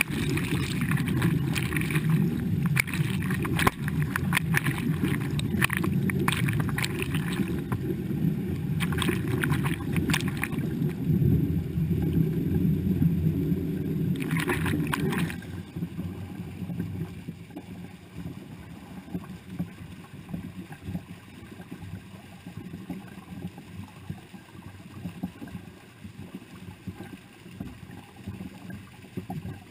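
River water splashing and gushing at the waterline as lake sturgeon are released into it. Loud, churning splashes for about the first fifteen seconds, then it drops suddenly to a quieter, steady gurgling flow.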